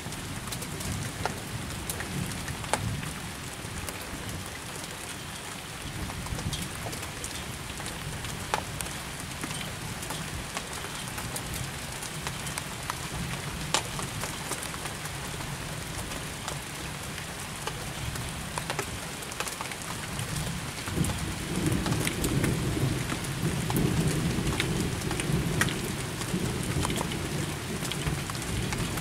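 Steady rain during a thunderstorm, with single drops ticking sharply close by. About two-thirds of the way in, a low rumble of thunder swells and carries on.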